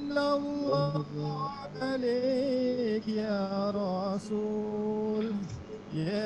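A slow song sung by a male voice over musical accompaniment, with long held notes.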